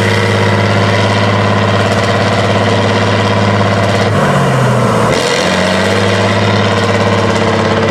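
Tatra 813 8x8 truck's V12 diesel engine running steadily under heavy load as the truck climbs a steep bank. About four seconds in, its pitch sags briefly and then recovers as the engine lugs.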